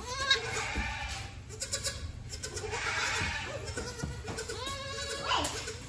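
Baby goat kids bleating, several short calls one after another.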